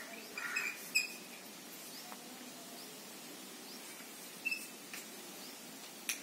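Chalk writing on a blackboard: faint scratching strokes with a few short squeaks and light taps of the chalk.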